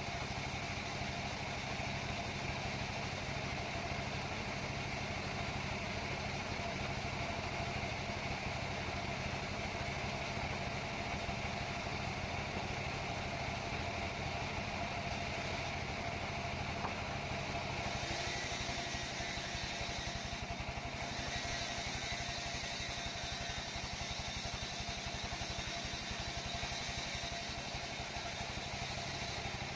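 Sawmill saw machinery running steadily with a low, even engine-like drone. About eighteen seconds in, a brighter hiss joins it.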